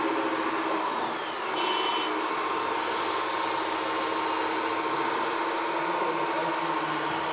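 Radio-controlled model excavators at work: a steady electric motor whine, with a short high-pitched tone about a second and a half in.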